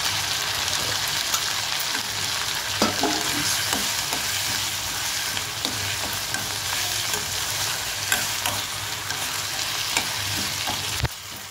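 Onions, tomatoes, dried red chillies and coconut pieces sizzling in hot oil in a stainless steel kadai while a steel spoon stirs them, scraping and clinking against the pan. A sharp knock near the end.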